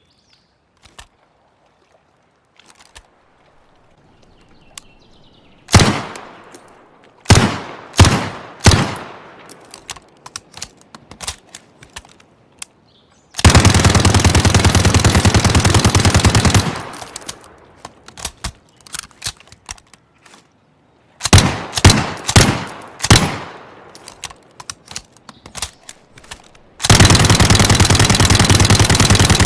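Uzi submachine gun firing: a few faint clicks, then several single shots, a long full-auto burst of about three seconds, more single shots, and a second long full-auto burst near the end.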